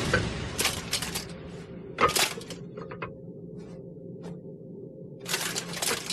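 Scattered sharp crackles and clicks in short clusters over a faint steady hum: a few near the start, a burst about two seconds in, single ticks in the middle, and a longer cluster near the end.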